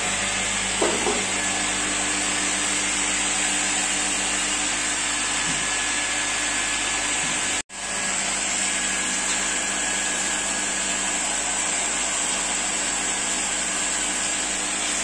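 Electric pump motor of a water purification plant running steadily, a constant whirring hum with a rushing hiss. The sound drops out for an instant about halfway through.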